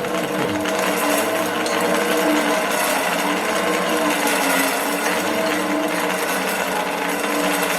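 Small electric motor running steadily, its hum wavering slightly in pitch, as part of the sawmill is driven until it has gone far enough.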